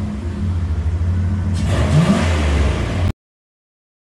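Loud car engine running, with a short rev that rises in pitch about two seconds in. The sound cuts off abruptly about three seconds in.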